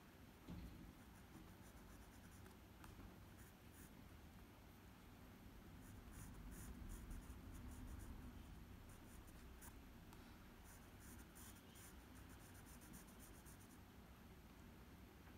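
Faint scratching of a graphite pencil on drawing paper, in quick, short, repeated shading strokes that come in clusters.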